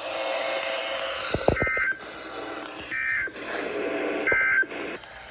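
Emergency Alert System end-of-message data tones on a weather radio broadcast: three short, identical two-tone digital bursts about a second and a half apart, marking the end of the warning. Before the first burst there is steady radio hiss with a few low clicks.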